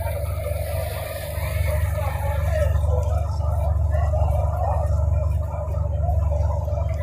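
Steady low drone of a passenger riverboat's engine running underway.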